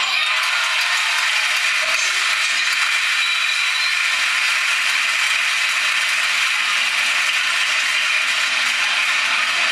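Steady crowd noise in a basketball sports hall during play, a thin, hissy sound with no single event standing out.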